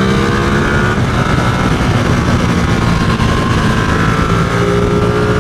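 Ducati Streetfighter V2's L-twin engine running at freeway speed, its note climbing gently near the end, under heavy wind noise buffeting the helmet-mounted mic.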